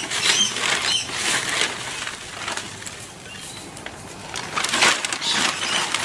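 Dry sugarcane mulch rustling and crackling as handfuls are pulled from its bag and pressed down around strawberry plants in a foam box. The crackling comes in two spells, in the first second or so and again near the end.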